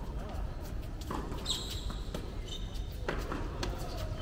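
Tennis rally on a hard court: a few sharp pops of racket strikes and ball bounces, with a short high squeak about a second and a half in.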